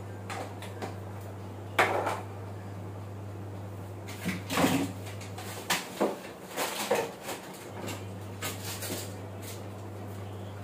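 Refrigerator compartment being opened and rummaged through: scattered knocks, clicks and rustles of things being moved about inside, over a steady low hum that drops out for about two seconds midway.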